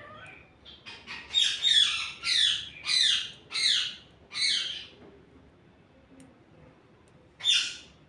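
A bird calling: a quick run of about six loud, high notes, each falling steeply in pitch, then a single matching call near the end.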